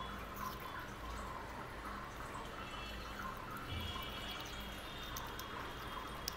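Sugar glider chewing juicy pomegranate arils up close: soft, wet, irregular smacking and clicking mouth sounds, with one sharper click near the end.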